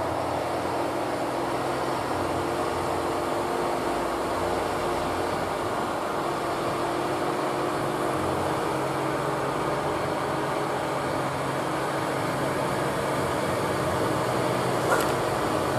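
Diesel engine of a loaded Mitsubishi Fuso dump truck running steadily as the truck moves slowly on a steep grade, getting slightly louder as it comes closer.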